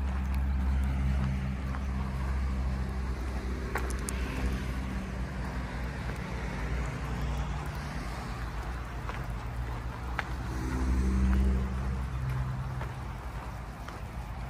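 Vehicle engine running while driving along a road, its pitch shifting with speed and rising to a louder stretch about three-quarters of the way through, with road and wind noise and a few sharp clicks.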